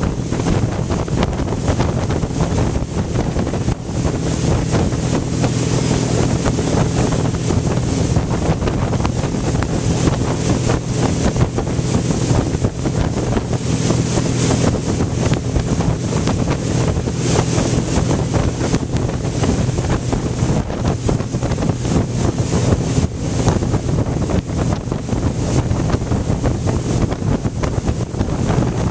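Towing motorboat's engine droning steadily at speed, mixed with wind buffeting the microphone and the rush of the wake and spray.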